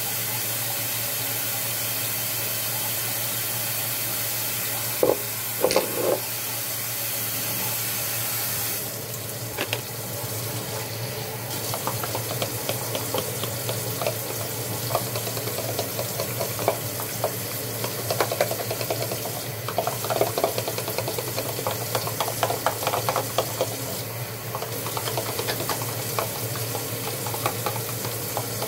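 Kitchen tap running steadily into the sink, with a couple of knocks about five seconds in. From about nine seconds on, a fork clicks rapidly against a plastic container, stirring a flour-and-seasoning gravy mix.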